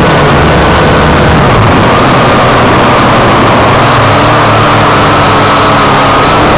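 X183 quadcopter's motors and propellers whirring loudly, heard through its onboard camera: a steady dense hiss with a whine that wavers slightly in pitch as the drone flies.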